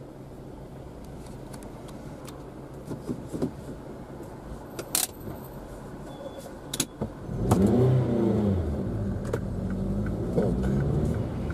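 A car's engine heard from inside the cabin, idling with a low hum while stopped, then pulling away and accelerating about seven seconds in, the sound getting louder and its pitch rising and falling. A couple of sharp clicks come shortly before it moves off.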